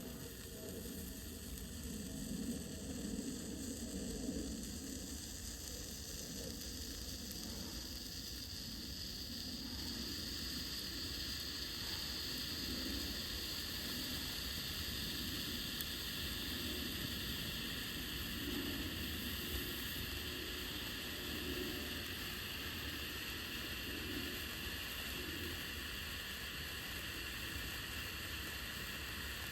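Weco Funkenzauber category 1 firework burning with a steady hissing sizzle, which grows a little stronger about ten seconds in.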